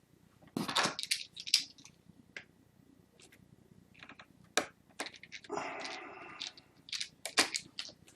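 Small metal screws and a screwdriver clicking and rattling while laptop display screws are picked up and set in place, with a brief scraping rustle a little past the middle.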